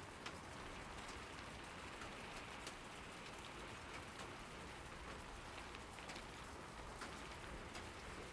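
Steady rain falling, an even hiss with scattered sharper drop ticks landing on nearby surfaces.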